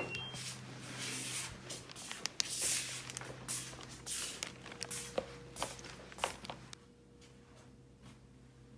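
Irregular rustling, scraping and clicking handling noises over a low steady hum, dying away about seven seconds in.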